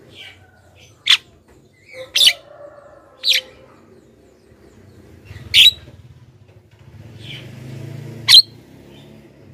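Javan myna giving five short, sharp calls spaced irregularly a second or more apart, with quieter chattering in between.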